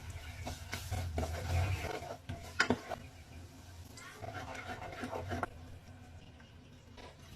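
Kitchen handling sounds: dishes and utensils clink sharply a few times, the loudest about two and a half seconds in, among rubbing and stirring noises.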